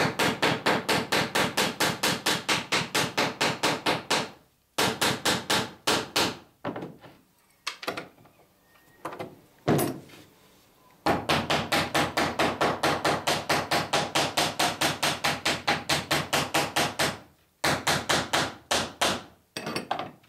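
Hammer riveting copper boat nails through the lap of clinker planks, with a dolly held against each nail head: fast ringing metal-on-metal blows at about four a second. The blows come in long runs broken by short pauses, with a few single knocks between runs.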